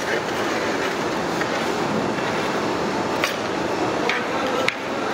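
Crisp fried okra being tossed and stirred in a large metal basin: a steady dry rustle, with a few sharp clinks of a metal spoon against the basin in the second half.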